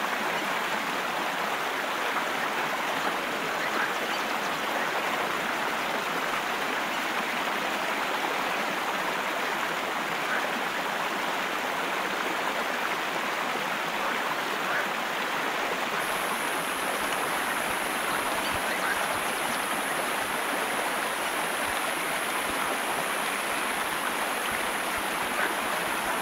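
Running stream water: a steady, even rushing. A steady high-pitched hiss joins a little past the middle.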